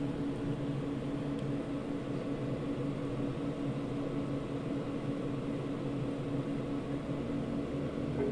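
Cooling fan of a PX1000 power amplifier running fast and steadily, a constant rush with a low steady hum under it.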